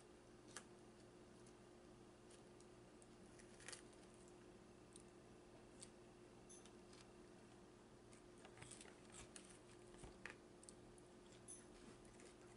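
Near silence: faint room tone with a steady low hum and scattered soft clicks and ticks, several bunched together about two-thirds of the way through.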